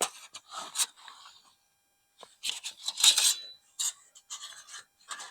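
Flat metal panels of a fold-flat camping stove scraping and clinking as they are handled and taken out of their case, in irregular bursts with the busiest stretch about halfway through.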